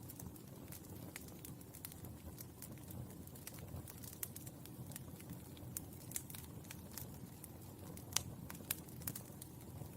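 Burning charcoal crackling: a steady low hiss and rumble under irregular sharp pops and ticks, the loudest pop about eight seconds in.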